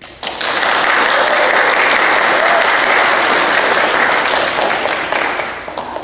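Audience applauding: the clapping breaks out all at once, holds steady, then starts to die down near the end.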